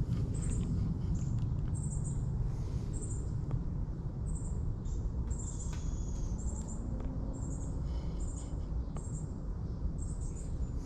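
Outdoor riverside ambience: short, high double chirps repeating about once a second over a steady low rumble, with a few faint clicks.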